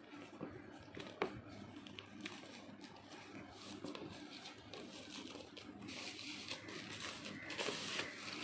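The wrapping on an Apple Magic Keyboard box being picked at, crinkled and peeled off by hand, with scattered clicks and taps of fingers and nails on the cardboard. About six seconds in comes a longer tearing, rustling hiss, the loudest part.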